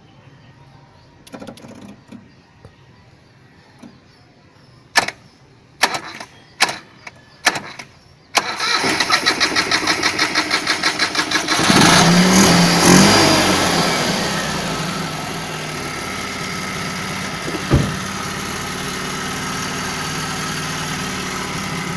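Several sharp clicks, then a carburetted petrol car engine cranked by its starter with a fast, even chugging for about three seconds. It catches about twelve seconds in, revs up briefly and settles into a steady idle.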